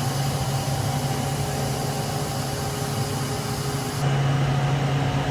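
Steady machine hum with a hiss over it, changing abruptly about four seconds in.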